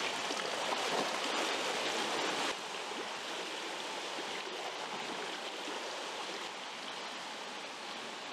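Swimming-pool water noise: a steady rushing wash of water around a swimmer. About two and a half seconds in it drops abruptly to a quieter, even hiss.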